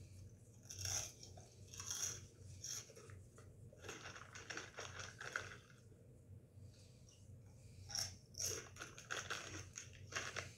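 Kettle-cooked jalapeño potato chips being crunched and chewed, in several bursts of crisp crackling with short pauses between mouthfuls.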